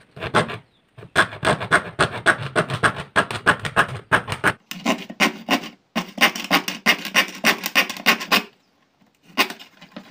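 Hand fret saw cutting a thin white sheet in quick back-and-forth strokes, pausing briefly about a second in and stopping about eight and a half seconds in, with a couple more strokes near the end.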